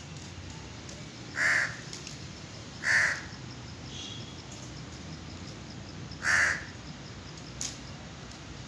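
A crow cawing three times: the first two caws about a second and a half apart, the third a few seconds later.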